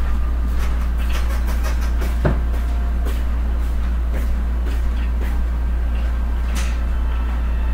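A steady low hum runs throughout, with scattered light clicks and knocks of things being handled; the sharpest knock comes about two seconds in.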